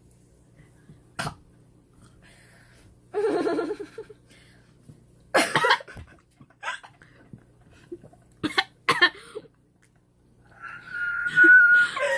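A girl coughing in several short, sharp bursts, with throat noises and a brief murmur between them. Near the end comes a drawn-out high-pitched vocal squeal.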